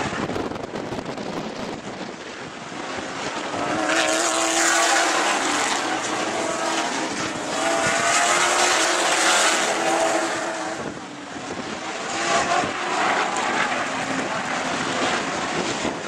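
Sportsman stock car engines racing past as a pack, their pitch rising and falling, loudest from about four to ten seconds in, with a dip and then another swell a little later.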